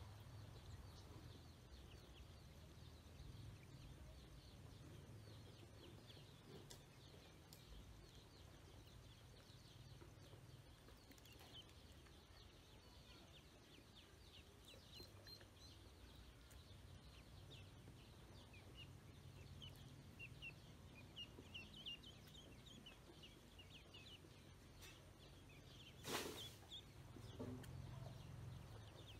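Ducklings peeping: a faint, steady stream of many short, high chirps, with one sharp knock near the end.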